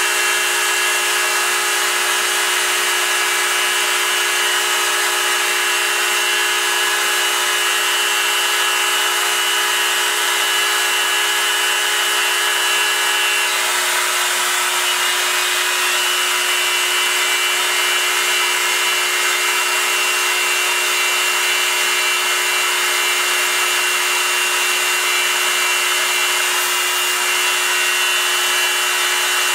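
Proxxon MF 70 mini milling machine with a CNC conversion milling aluminium: the spindle runs with a steady whine of several held tones over a dense hiss, the pitch mix shifting slightly about halfway through.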